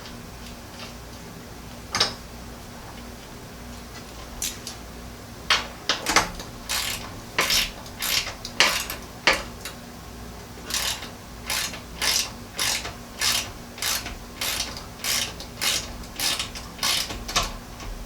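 Hand ratchet clicking as it is swung back and forth to run down a bolt. It starts with a few separate clicks, then settles from about six seconds in into regular strokes a little under twice a second, with a short pause near ten seconds.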